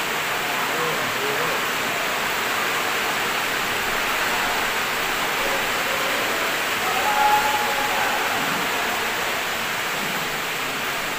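Steady rushing background noise of the hall, with faint voices now and then and a brief, louder high-pitched sound about seven seconds in.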